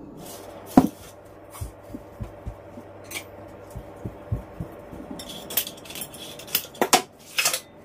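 KitchenAid saucepan in its cardboard packaging set down on a table with a sharp knock about a second in, followed by a few soft thuds and scattered clicks and rustles of the packaging being handled. A faint steady hum runs underneath.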